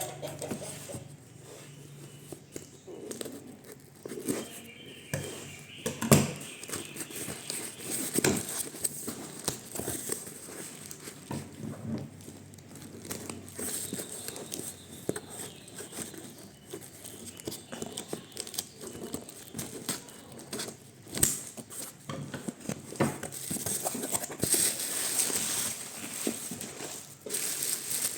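Blind-box packaging being crinkled and torn open by hand, with scattered sharp clicks and knocks as it is handled.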